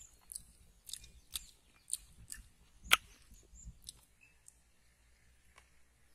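Wet mouth clicks and smacks of someone chewing a piece of fresh wild honeycomb, a few sharp clicks in the first four seconds with the loudest about three seconds in, then fainter.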